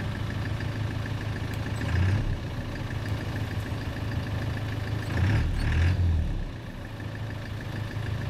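Off-road 4x4 engine running steadily, revving hard in two bursts: briefly about two seconds in, then longer around five to six seconds in, as the vehicle works at a steep dirt bank climb.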